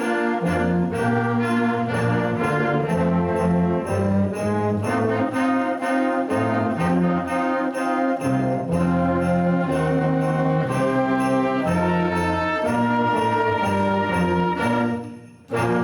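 Student band playing an instrumental holiday piece: brass instruments carry the tune over steadily shaken sleigh bells. The music fades out near the end, followed by one short final note.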